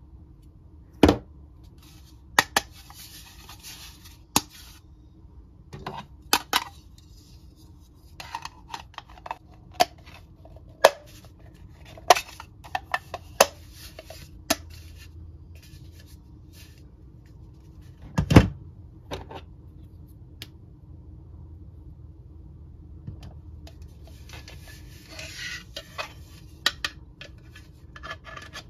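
Hard plastic Mr. Potato Head toy parts clicking and knocking as they are handled, set down and pushed into the hollow plastic potato body. The knocks are scattered and irregular, the loudest about 18 seconds in, with two stretches of plastic rubbing and rustling.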